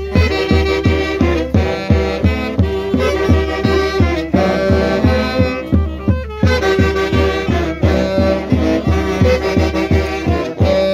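Saxophone band playing a lively tune together over a quick, steady bass drum beat, with brief breaks between phrases.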